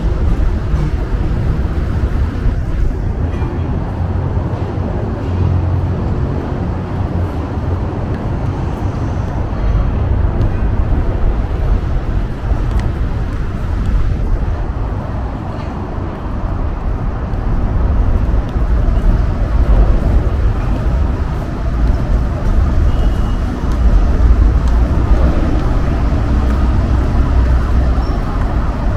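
Busy city street ambience: steady road traffic noise from cars and buses, with passers-by talking.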